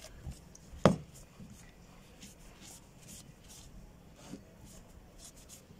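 Microfiber towel rubbing and rustling against a rusty revolver's steel frame as the parts are wiped dry, in short faint strokes. One sharp knock about a second in.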